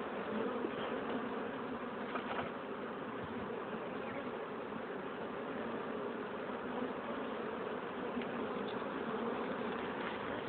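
Many honeybees flying around an opened hive, buzzing steadily.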